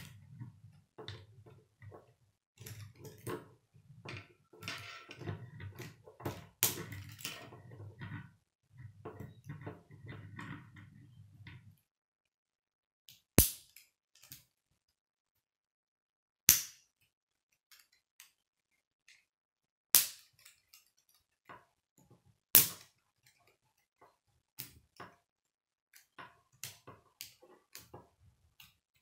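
K'nex plastic rods and connectors being handled and snapped together: soft clicking and rustling of the pieces at first, then four loud sharp snaps a few seconds apart in the middle, followed by lighter clicks.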